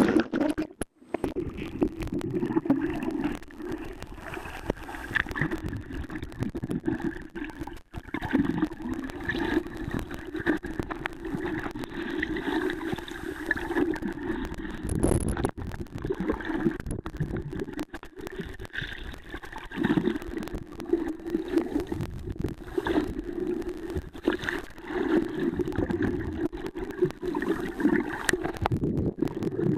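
Sea water heard through a camera submerged while its holder swims: a muffled, continuous, uneven sloshing and gurgling with frequent short knocks.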